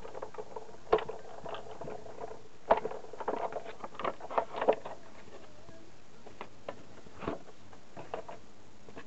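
Clear plastic cutting plates, a metal die and card being handled and stacked on a Big Shot die-cutting machine: scattered clicks and taps, busiest from about three to five seconds in, then only a few isolated ticks.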